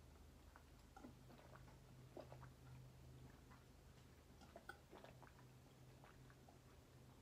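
Faint gulping and swallowing of a person drinking a bottle down without stopping, soft irregular gulps about once or twice a second over a low steady hum.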